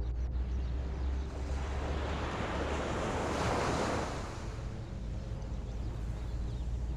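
Ocean surf: a wave swells and washes in over a couple of seconds midway, over a steady low rumble of wind on the microphone.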